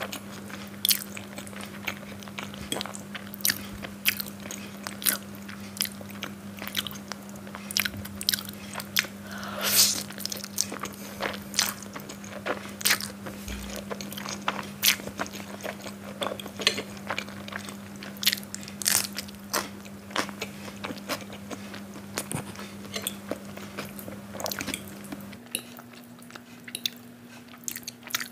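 Close-miked chewing of Maggi instant noodles, with frequent irregular wet mouth clicks and smacks and a louder noisy mouthful about ten seconds in. A steady low hum runs underneath.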